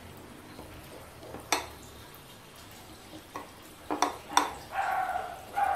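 A few sharp clicks of fried fish and fingers against ceramic plates as food is handled by hand, then a dog giving two short barks near the end.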